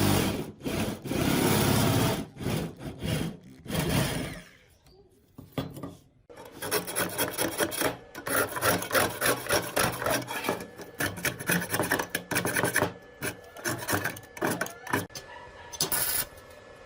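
Quick back-and-forth rasping strokes of a part being abraded by hand, typical of filing or sanding off rust. The strokes stop for about a second and a half, then resume in a fast, even run.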